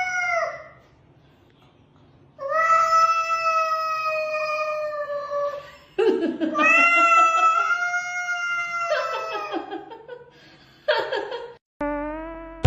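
A cat yowling. A short meow comes first, then two long drawn-out calls of about three seconds each, held at a steady pitch, then a couple of shorter calls near the end.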